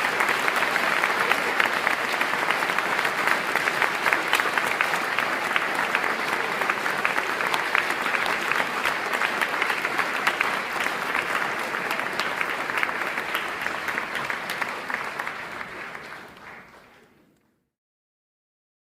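A crowd applauding, many hands clapping densely and steadily, then fading out over the last few seconds to silence.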